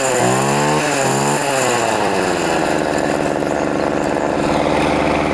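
Homelite Expand-it two-stroke string trimmer engine revved in quick blips a few times, then held at a steady high speed.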